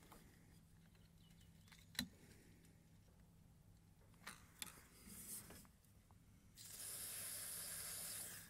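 Aerosol can of WD-40 Specialist Contact Cleaner spraying through its straw nozzle onto an electrical connector: a steady hiss lasting about two seconds near the end. Before it, a faint click and a few light handling sounds.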